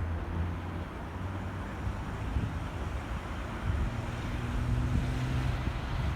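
Alsthom diesel-electric locomotive's engine running with a steady low hum, growing gradually louder, with a higher steady tone joining about four seconds in.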